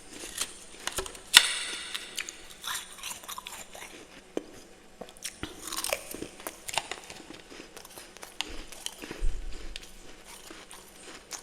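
Close-miked biting and chewing of freezer frost from a humidifier-style freezer: irregular crisp crunches, the loudest a sharp bite about a second and a half in.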